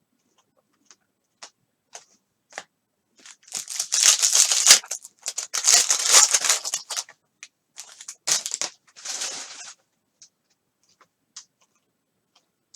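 A foil trading-card pack wrapper being torn open: two long, crackly tearing stretches, with a few light clicks of cards being handled before and after.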